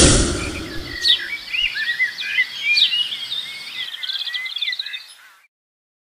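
Jungle sound effect from an animated outro: a low rumble dies away in the first second or so under a chorus of tropical bird calls, quick chirps and whistled glides with a rapid rattling trill near the end. It all stops about five and a half seconds in.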